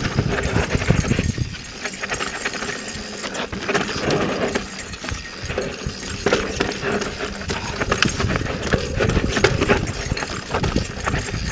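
Mountain bike rolling over a rough dirt trail: tyres crunching over dirt and rock, with a dense, irregular run of rattles and knocks from the bike over bumps and a low rumble that comes and goes.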